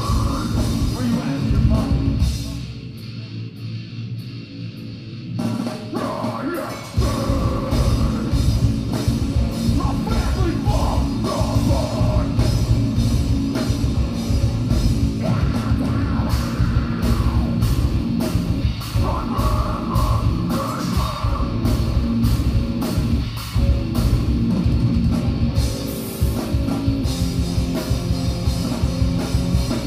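Live heavy rock band playing: electric guitars, bass and drum kit, with a vocalist singing. About two seconds in the band drops to a thinner, quieter passage without the low end, then comes back in full about seven seconds in.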